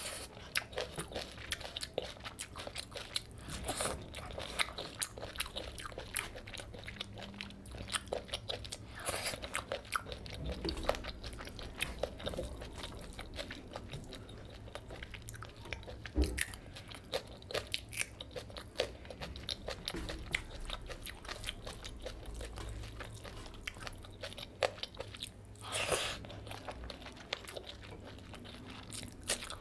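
A person eating close to the microphone: steady chewing with many small crunchy bites and clicks, and a few louder crunches, while rice and curry are mixed by hand.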